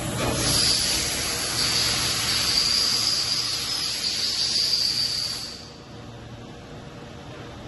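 Steady hiss of compressed air blowing at the CNC machine's fixture while the robot arm loads it, starting just after the opening and cutting off about five and a half seconds in. A low machine hum runs underneath.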